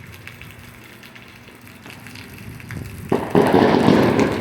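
Steady rain, then about three seconds in a sudden loud burst of rapid crackling from fireworks being set off.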